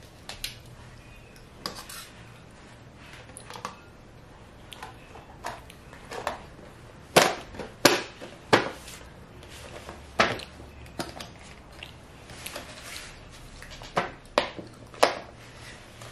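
Chopsticks and bowl lids clinking and knocking against small bowls at a table, in irregular clatters. The sharpest knocks come in a cluster around the middle and again near the end.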